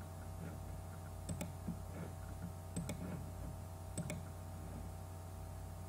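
Computer mouse clicking: three quick pairs of clicks about a second and a half apart, over a steady low electrical hum.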